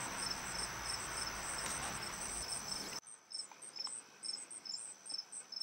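Crickets chirping in an even rhythm, several short high chirps a second, over a faint steady high whine and a low hiss that drops away suddenly about three seconds in.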